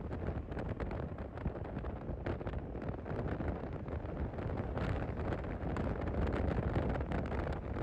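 Wind buffeting the microphone: a steady, uneven rushing noise heaviest in the lows.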